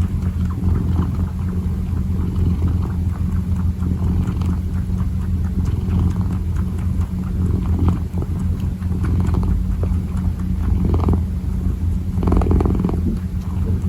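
Kitten purring close to the microphone, a steady low, fast-pulsing rumble, with a few soft rustles near the end.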